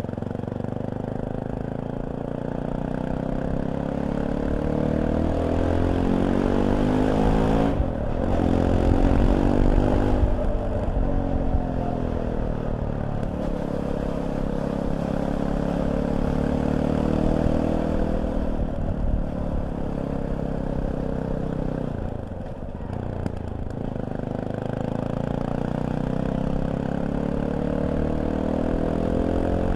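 Fantic Caballero 500's single-cylinder four-stroke engine pulling under way, its revs climbing steadily and dropping sharply at gear changes about 8 seconds in and again near 22 seconds.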